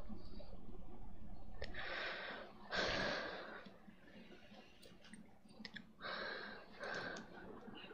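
Breaths taken close to a headset microphone in a pause between recited verses: a pair of breaths about two and three seconds in and another pair around six and seven seconds in, with faint mouth clicks between them.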